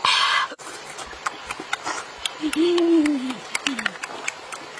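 A person's low hummed "mmm", rising then falling, about halfway through, with a shorter one after it. Scattered small clicks run throughout, and a short burst of hiss comes at the very start.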